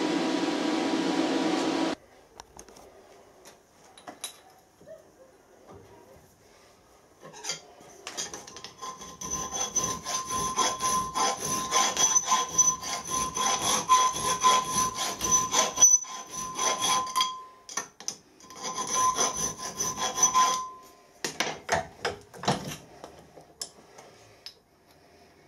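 A steady hiss stops abruptly about two seconds in. Then a hand file rasps in quick back-and-forth strokes across the edge of a plasma-cut metal plate clamped in a bench vice, with a ringing tone over the strokes, stopping and starting again briefly near the end. The filing is cleaning up the plasma-cut edge.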